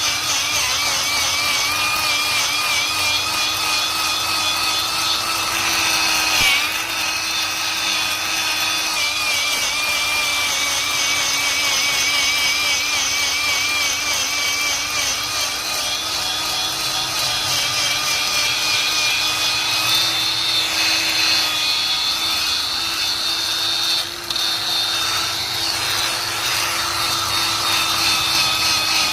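A power tool spinning a metal-cleaning wheel against a metal surface: a steady motor whine with a rasping, scrubbing hiss. The pitch wavers slightly as the wheel is pressed and moved, and the sound dips briefly once near the end.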